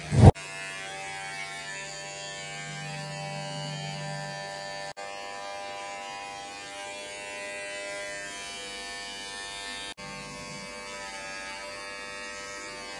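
Cordless electric hair trimmer with a comb guard, starting with a sharp click and then running with a steady buzz as it trims hair on the side and top of the head. The buzz breaks off for an instant twice.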